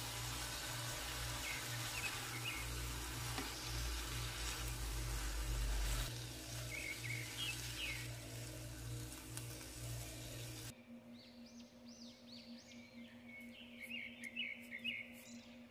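Steady kitchen noise with a low, pulsing hum under it and a few bird-like chirps. About eleven seconds in it cuts off abruptly to soft ambient background music with chirping bird sounds.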